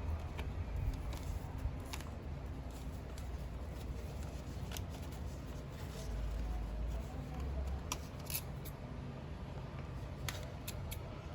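Coin packaging being handled and opened by hand: scattered sharp clicks and crinkling of plastic and card, over a low steady rumble.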